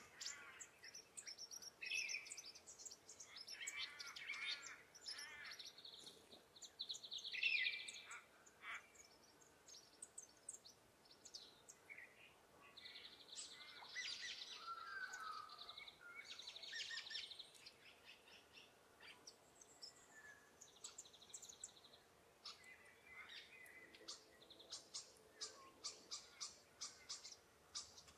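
Several wild birds calling in quiet woodland, a mix of chirps, whistled notes and fast trills that overlap and come and go. Near the end comes a quick run of short, sharp notes.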